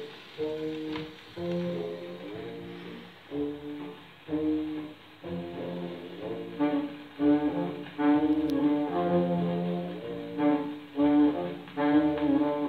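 A 78 rpm record played on an HMV radiogram, heard through the set's own loudspeaker: band music with brass.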